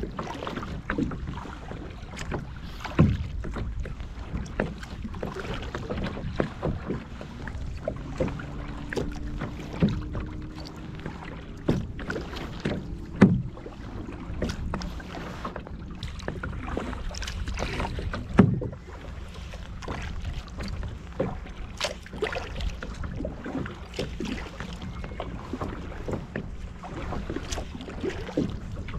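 Small waves lapping and slapping against the plastic hull of a kayak in irregular splashes, a few of them louder, over a steady rumble of wind on the microphone.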